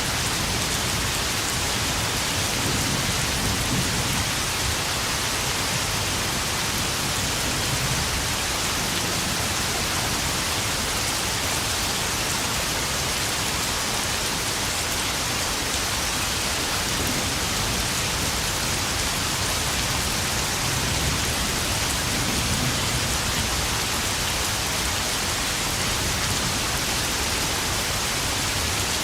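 Steady, heavy rain pouring and pattering on puddles, with a few low rumbles of distant thunder under it.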